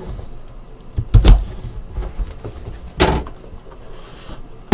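Cardboard trading-card hobby box handled on a tabletop: a few dull thumps and knocks, a pair about a second in and another around three seconds, with faint scraping and rustling between.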